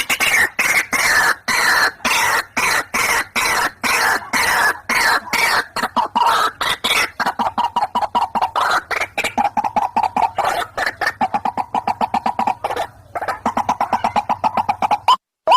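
White-breasted waterhens (ruak-ruak) calling, a male and female pair, in a rapid run of harsh repeated notes several times a second; this is the lure call used to attract the birds. The chorus breaks off near the end and a single rising note begins.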